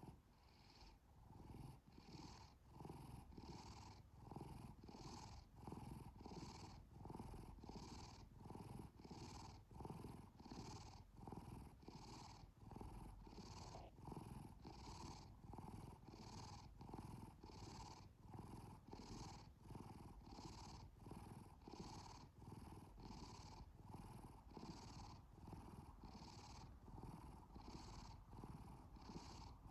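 A domestic cat purring softly and steadily, the sound swelling and easing with its breathing at about three pulses every two seconds.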